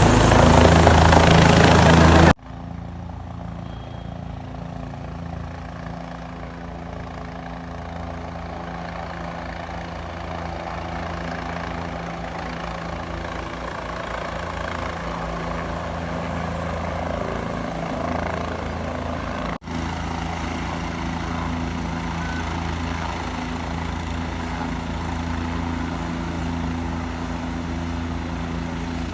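Helicopter rotor and engine running steadily, a droning hum with a fast even beat. It is loud and noisy for the first two seconds or so, then cuts abruptly to a quieter, steadier drone, with a brief dropout about twenty seconds in.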